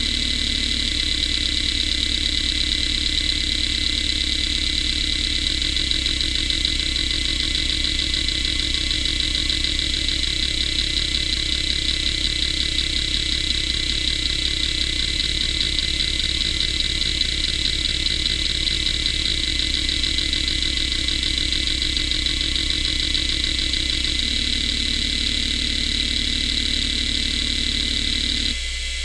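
Quantum ProDrive LPS 105S hard drive running a seek test: a steady high spindle whine over rapid, continuous head-seek ticking from the actuator. The ticking rhythm changes a few times as the seek pattern changes, and drops out briefly near the end.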